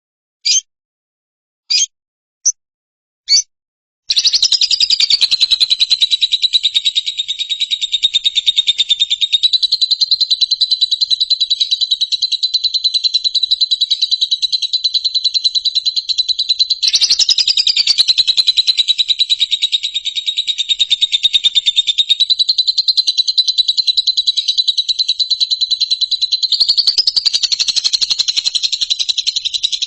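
Bird song: a few short, separate chirps, then about four seconds in a continuous fast, high buzzing trill that runs on, shifting slightly in pitch several times.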